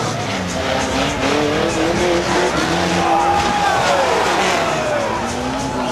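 Several banger race cars' engines revving hard as they race round the speedway oval, their pitch rising and falling as they pass.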